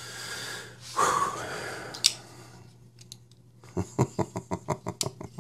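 A breathy exhale, then a sharp click about two seconds in, followed near the end by a quick run of light clicks, about seven a second, as a folding knife is handled.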